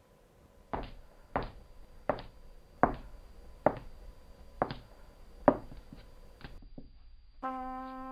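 Slow footsteps on a hard floor, seven steps about three quarters of a second to a second apart, followed near the end by a short held pitched tone.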